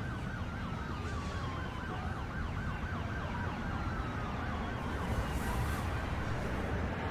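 Emergency vehicle siren wailing in a fast up-and-down yelp, fading near the end, over a steady low traffic rumble.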